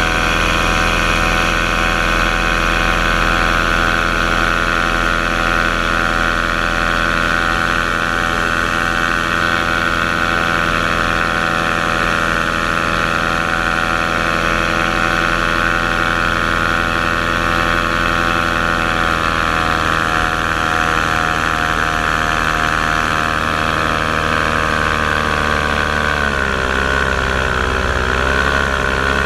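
Paramotor engine running steadily at cruise throttle behind the pilot, with wind rushing past. Near the end the engine note dips and wavers as the throttle is eased off, then picks back up.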